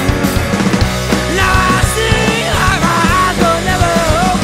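Rock band playing an instrumental passage with distorted electric guitars, bass guitar and drums. About a second and a half in, a high lead line comes in with bending, gliding notes.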